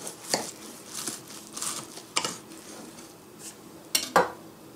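Knife and plate clinking as a toasted grilled cheese sandwich is cut in half and its halves are handled on a ceramic plate: a few sharp clicks, two close together near the end.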